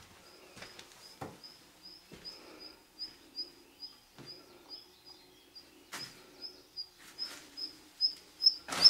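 Black redstart calling a short high chirp over and over, about three times a second. Scattered clicks and knocks run under it, with one loud knock near the end.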